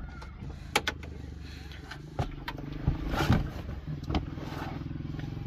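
A person climbing into a car's driver seat: a few scattered knocks and rustles against the seat and cabin, over a steady low hum.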